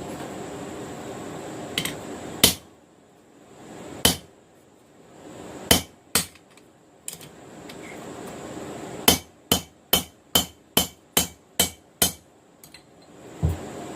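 Forging hammer striking steel on an anvil: a few single blows spaced a second or more apart, then a quick run of about eight blows at roughly three a second, and one more blow near the end.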